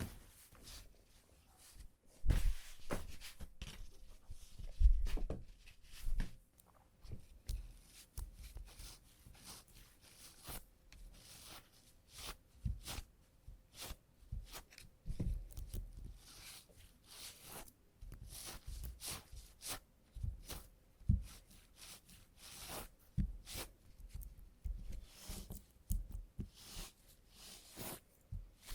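Sticky adhesive tape pressed onto and peeled off trouser fabric to lift embedded cat hair, in irregular crackling rips with occasional low thumps.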